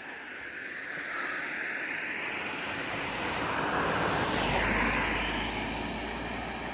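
A motor vehicle passes by. Its engine and tyre noise builds, peaks about four to five seconds in, then drops in pitch and fades as it moves away.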